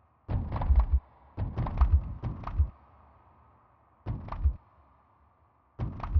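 Sonified earthquake tremors: each recorded tremor triggers a short sample of a sped-up seismic waveform, heard as low thuds with faint higher pings, whose pitch stands for the quake's depth and whose length and loudness stand for its magnitude. They come in four separate groups of rapid hits, two longer ones in the first three seconds and two brief ones about a second and a half apart near the end.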